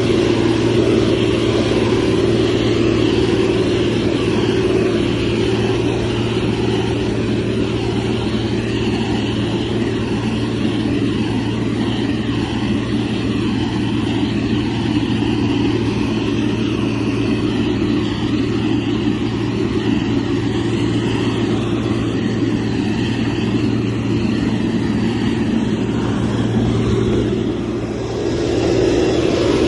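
Heavy diesel engine of a motor grader running steadily under load, with a constant low hum. It dips briefly near the end.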